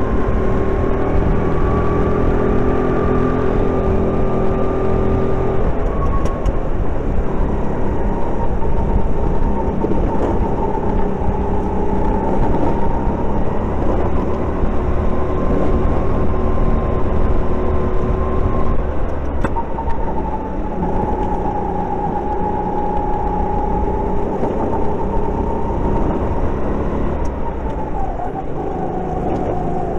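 Kart engine running hard at racing speed, a steady high drone that dips in pitch a few times as the throttle comes off and picks up again.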